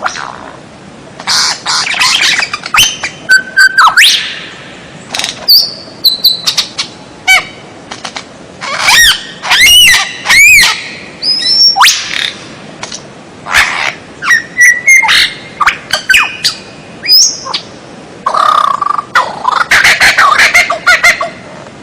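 Songbird song: bursts of chirps, whistled notes that glide up and down, and fast rattling trills, one phrase after another with short gaps.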